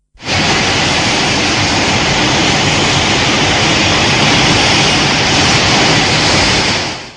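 Film sound effect: a loud, steady rushing hiss that starts suddenly and fades out near the end, about seven seconds long.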